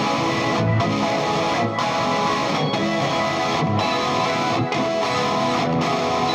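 Soft rock background music, guitar-led, with a steady beat.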